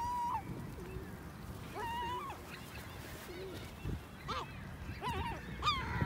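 Gulls calling: a drawn-out call ending just after the start, another about two seconds in, then three quicker calls in the last two seconds.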